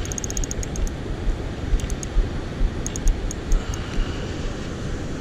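Spinning fishing reel clicking in short rapid runs while a large fish is on the line. Under it, a steady rush of fast water with low thumps of wind buffeting the microphone.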